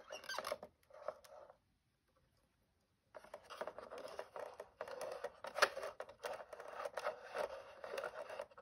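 The plastic gear mechanism of a Presu East German toy crawler crane rattles and scrapes as the crane is worked. Two short bursts come in the first second and a half, then a continuous clicking rattle runs from about three seconds in.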